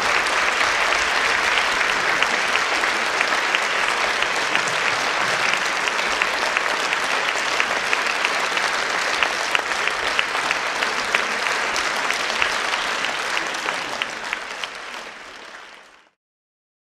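Audience applauding steadily, a dense patter of many hands clapping, fading away near the end and then cutting off abruptly.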